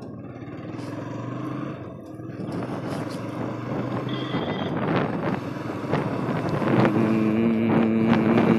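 TVS Apache RTR 160's single-cylinder engine running as the motorcycle pulls away and picks up speed, with wind and road noise growing louder. A steady droning tone joins in for the last couple of seconds.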